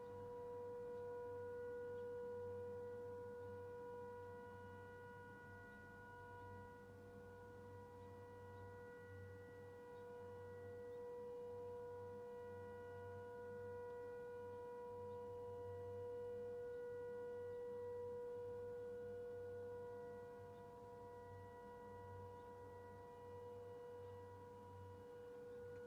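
Civil-defence air-raid siren sounding one long, unbroken tone at a steady pitch: the mourning signal for the national moment of silence for COVID-19 victims.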